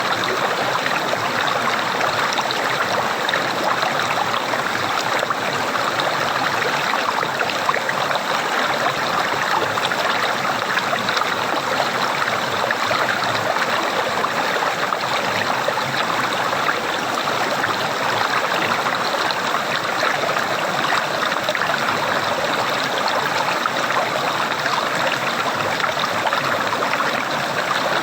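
Water flowing and gurgling steadily, an even rushing with no pauses.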